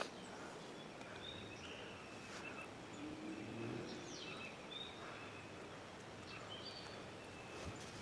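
Woodland birds calling: scattered short, high chirps and a down-slurred note over a faint steady hiss.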